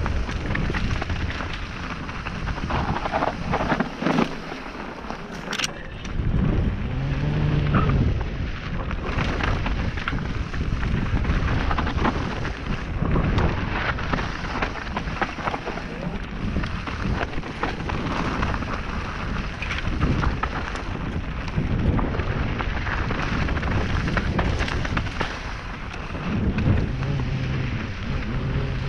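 Wind buffeting an action camera's microphone, with a continuous low rumble and frequent knocks and rattles from moving fast over a dirt singletrack.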